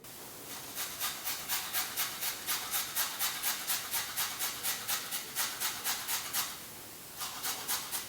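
Carrot being grated on a metal grater: even rasping strokes, about three to four a second, with a short pause about seven seconds in.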